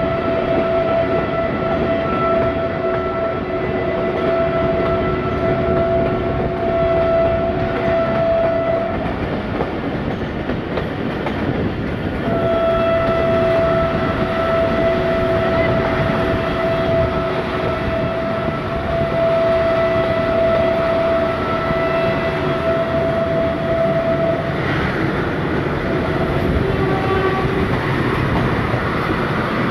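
Train horn sounding two long steady blasts, the first lasting about nine seconds and the second about twelve, over the continuous rumble and rattle of the moving train.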